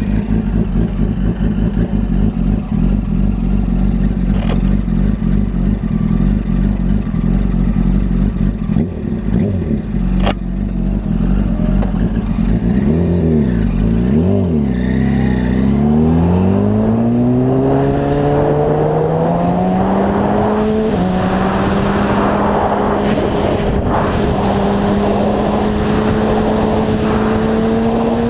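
Motorcycle engine heard onboard. It runs at a steady low pitch for about twelve seconds, and the revs dip and rise a few times. Then it climbs steadily under acceleration, drops suddenly at an upshift about 21 seconds in, and climbs again, with wind noise building as speed rises.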